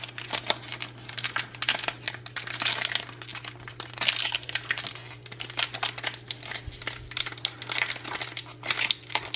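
Foil booster pack wrapper crinkling and crackling in irregular bursts as fingers work at its crimped top seal to open it.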